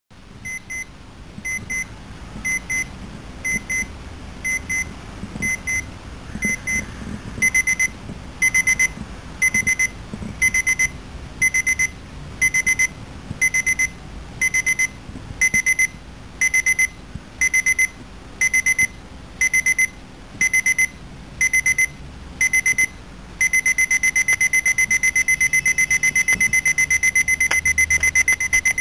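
Battery quartz alarm clock going off, a high-pitched electronic beep. It comes in short repeated bursts, the bursts growing longer about seven seconds in, then turns into continuous fast beeping near the end as the alarm escalates.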